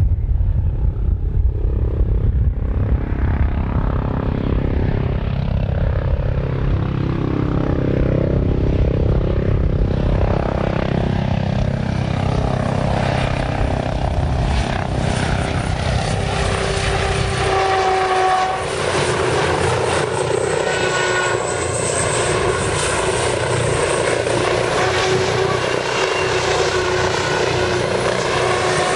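RAH-66 Comanche helicopter in flight, its rotors and twin turboshaft engines running. A deep rumble for the first half gives way to a steady whine and hiss as the low rumble fades.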